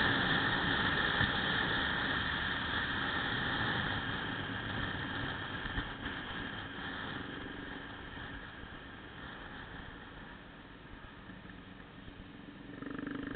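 Small motorcycle cruising in a group ride, its engine mixed with wind and road noise, slowly growing quieter. Near the end another motorcycle comes close alongside and its engine swells briefly louder.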